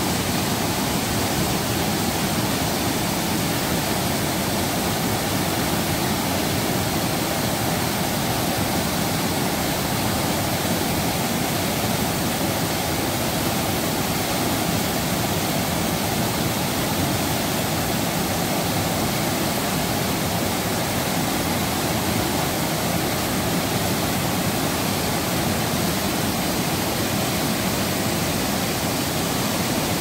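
Steady rush of white water pouring down a rocky river cascade.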